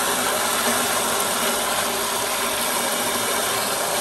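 Water from a Moen Adler pull-down kitchen faucet's spray head, in spray mode, running into an empty plastic bucket: a steady, even hiss of splashing water.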